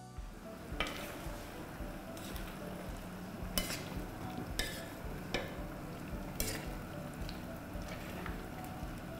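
Vegetables sizzling in a stainless steel wok over a gas flame as a spoon stirs them, with several sharp knocks of the spoon against the pan.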